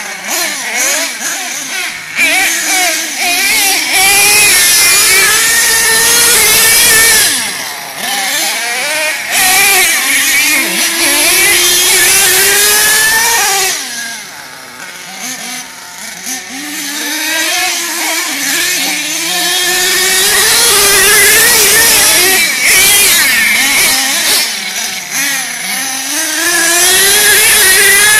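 Small nitro engine of a radio-controlled monster truck revving up and down over and over as it is driven, its high whine rising and falling in pitch. The sound drops lower for a couple of seconds about halfway through, then climbs back.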